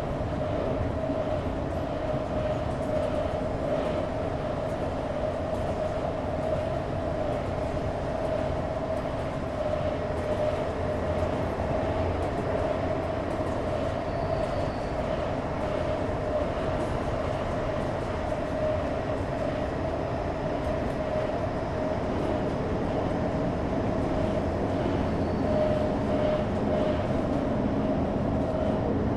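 Inside a commuter train running along the track: a steady rumble of wheels on rail with a constant whine from the train's motors, and faint clicks now and then.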